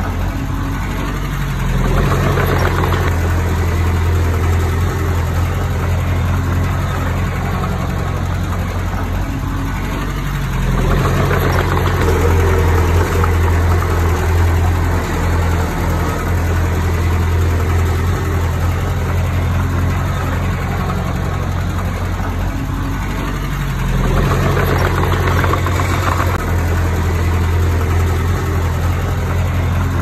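Komatsu D20P bulldozer's diesel engine running steadily under work. It swells louder and fuller three times: about two seconds in, around eleven seconds and around twenty-four seconds.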